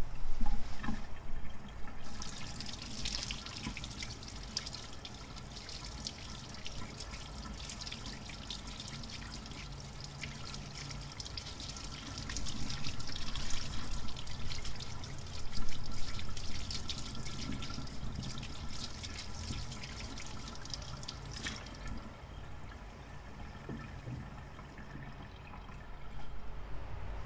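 Kitchen tap running into a stainless steel sink, with a sweet potato scrubbed by hand under the stream. The splashing is louder in the middle while the potato is under the water, and the flow stops a few seconds before the end.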